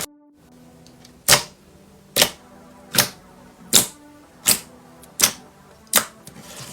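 Sharp, crisp clicks or snaps, seven in an even rhythm about three quarters of a second apart, over a faint low hum.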